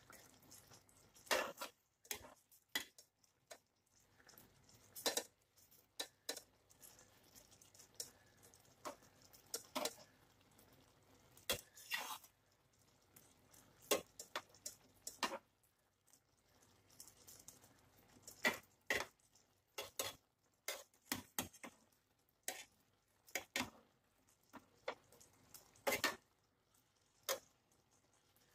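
Kitchen tongs clicking and tapping against a frying pan at irregular intervals as pieces of fried fish are turned in the sauce.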